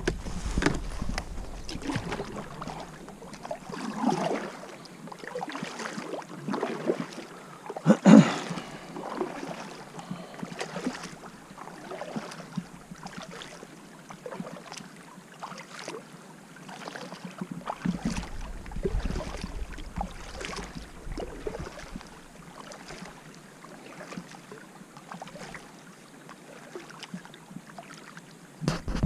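Kayak paddle blades dipping and pulling through calm water in a steady paddling rhythm, each stroke a soft splash and trickle. There is one sharp knock about eight seconds in.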